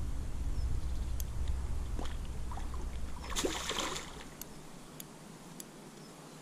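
A barbel thrashing in a landing net at the river's edge, splashing at the surface, most strongly around the middle. A low wind rumble on the microphone stops about two-thirds of the way in.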